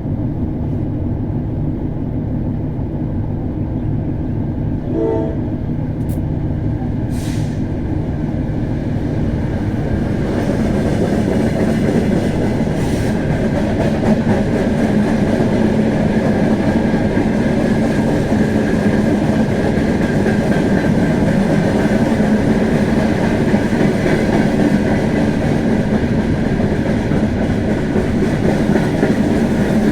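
TE33A diesel locomotive running steadily, with rail and wheel noise swelling about ten seconds in and staying loud as the train rolls along.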